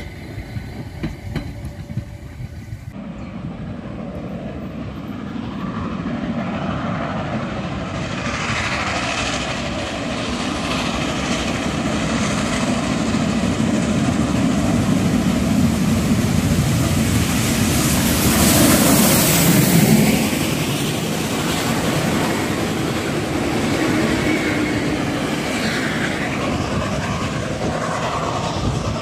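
Narrow-gauge railway coaches rolling past. Then the class 95 steam tank locomotive 95 027 works toward the listener under steam, growing steadily louder until it passes about two-thirds of the way through, followed by its coaches rolling by on the rails.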